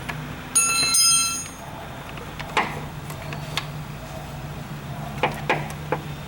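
A pulley puller being worked with metal hand tools: a brief high metallic ring about half a second in, the loudest sound, then a few sharp separate metal clicks. A steady low hum runs underneath.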